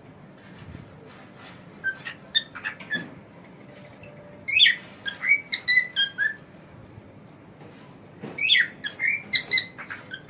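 Cockatiel chirping and whistling in short, quick notes: a few soft ones about two seconds in, then two louder runs of rapid chirps around halfway and near the end.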